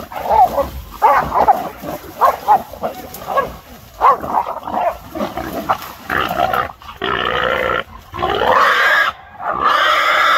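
A feral hog sow being caught by a catch dog. Short barks and grunting calls come first, then from about six seconds in the hog gives long, loud squeals.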